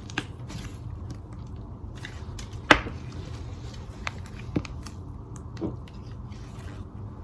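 Hands squishing and working a smooth, non-sticky slime, giving scattered soft pops and clicks, with one sharper click a little under three seconds in.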